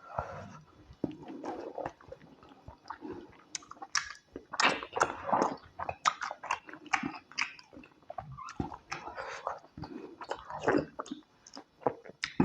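Close-miked eating: chewing and biting into tilapia pepper soup and starch, a dense, irregular run of sharp mouth clicks and short wet smacks.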